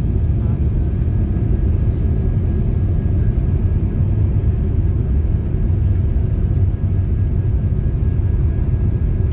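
Steady low rumble of engine and airflow noise inside the passenger cabin of an Airbus A350 descending on approach to land.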